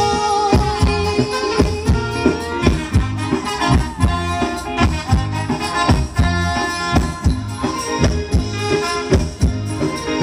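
Live Thai ramwong dance music from an amplified band: a drum kit keeping a steady beat of about two or three strokes a second under instrumental melody lines.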